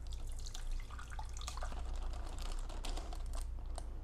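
Soup being poured and sloshing into a small electric cooking pot, with scattered light clicks and knocks of plastic takeaway containers. There is so much broth that the hot-pot ingredients barely fit.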